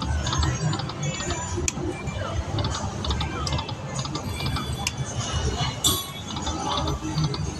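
Slot machine chiming and ticking with short electronic beeps, over the murmur of voices and machine sounds on a casino floor.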